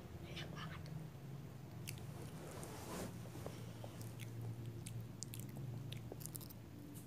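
Someone chewing and biting a soft snack, with scattered wet mouth clicks and the light crinkle of its plastic wrapper being handled, over a low steady hum.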